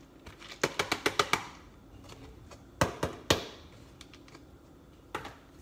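Chopped cauliflower being tipped and tapped out of a plastic container into a stainless steel frying pan: a quick run of light clicks about half a second in, two sharper knocks near the middle, then a few fainter ticks.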